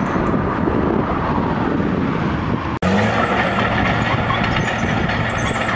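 Diesel earthmoving machinery on a railway trackbed construction site: a dense, steady rushing machine noise, then an abrupt cut about three seconds in to the steady drone of a bulldozer and dump truck engine.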